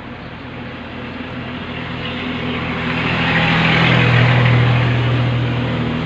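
A low engine hum that swells steadily to a peak about four seconds in, then begins to fade.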